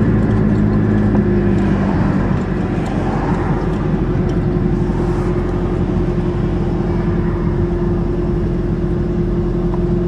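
Car engine and road noise at a steady cruise, from a Turbo Aries wagon towing a loaded trailer: an even drone with a steady low hum.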